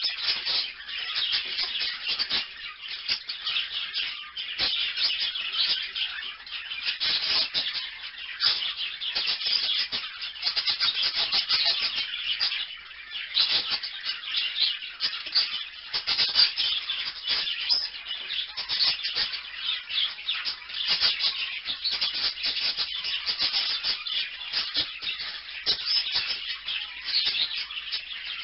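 Small parrots, parakeets, chattering without a break: a dense stream of rapid, high chirps and warbles.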